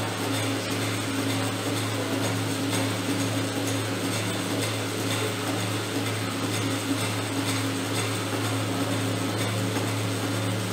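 Steady low mechanical hum under a constant hiss, with faint scattered ticks.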